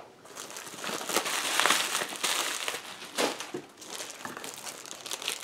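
Thin plastic bags and plastic wrap crinkling and rustling as hands dig through packaging, with sharper crackles here and there; loudest in the first half.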